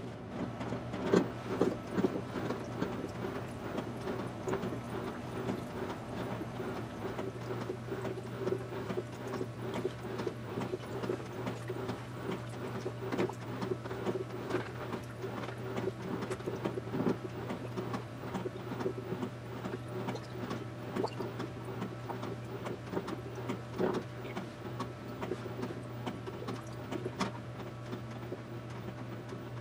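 LG mega-capacity top-load washing machine filling with water and working a load of drapes, in sped-up audio: a steady hum under a quick, irregular stream of clicks, sloshes and rustles from the drum and the wet fabric.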